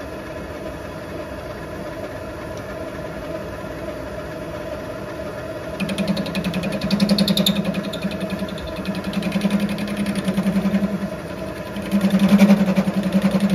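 Servo-motor mini-lathe running steadily, then from about six seconds in the tool cuts into pipe spinning in the 5-inch chuck. The cut brings a loud, fast-pulsing chatter in three stretches and a brief high squeal near the first. The machine is bouncing on its rubber mounts under the cut.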